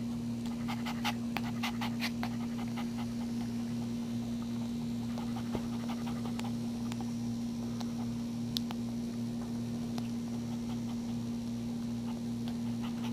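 Mother dog panting just after giving birth, over a steady low hum. The nursing newborn puppy makes clusters of small suckling clicks in the first couple of seconds.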